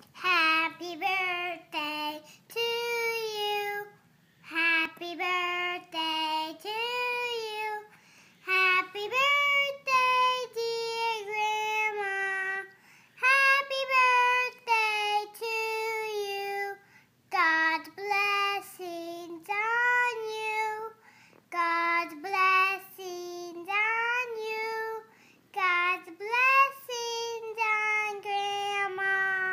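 A young girl singing solo without accompaniment, holding and gliding between notes in phrases of about four seconds with short breaths between them.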